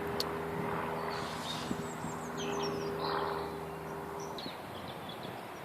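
Bird chirps, short and high and falling, over a steady low hum that stops about four and a half seconds in.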